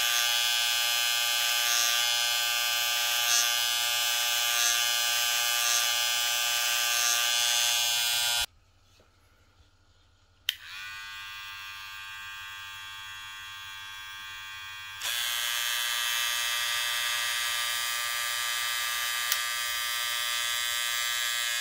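Wahl Cordless Detailer hair clipper running with a steady electric buzz. It cuts off about eight seconds in, starts again about two seconds later more quietly, grows louder a few seconds after that, and stops at the end.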